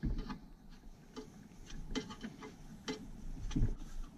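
Irregular light metallic clicks of an Allen wrench turning and seating the bolts that hold a steel console safe to the floor, with a duller knock about three and a half seconds in.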